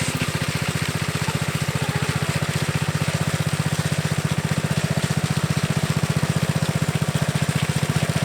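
Small gasoline engine of a power trowel running steadily with a fast, even pulse, as it smooths the surface of freshly poured concrete.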